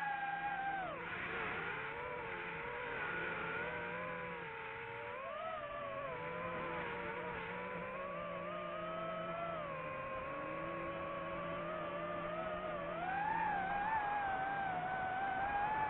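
A high motor whine that rises and falls in pitch over a few seconds at a time, climbing near the end.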